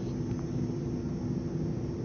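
Steady low background rumble with a faint constant hum, with no distinct events.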